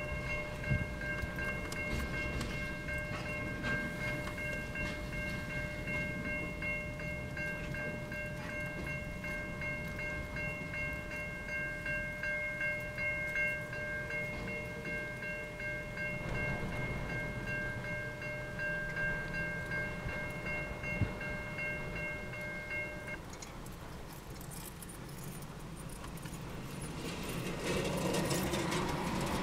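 Container wagons of a long freight train rolling past, a steady rumble with wheel noise. A steady high-pitched squeal with overtones rides over it and stops suddenly about three quarters of the way through.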